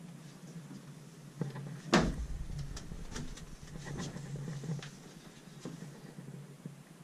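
Wooden louvered closet doors being handled: a knock, then a loud thump about two seconds in, followed by a run of small clicks and rattles from the doors and their latches.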